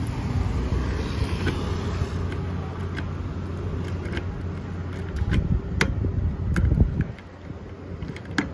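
Key clicking and rattling in the locking fuel filler cap of a Suzuki GSR600 tank as the cap is unlocked and worked open: a string of sharp metal clicks over a steady low background rumble.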